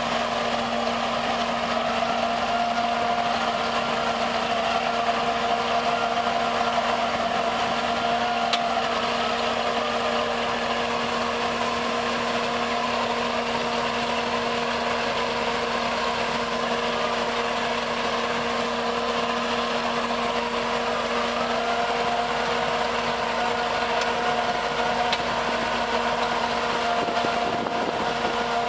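A heavy machine's engine running steadily, with a steady whine over it that rises slightly in pitch about two seconds in and again about 21 seconds in.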